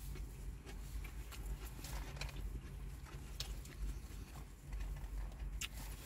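A person chewing a mouthful of doner kebab with onions: scattered wet mouth clicks over a low, steady rumble.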